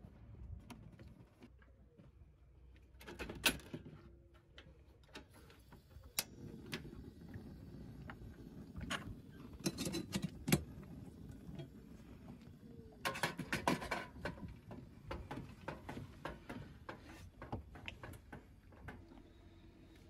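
Faint handling sounds: scattered clicks and knocks of things being moved about, over a low rumbling haze from about six seconds in.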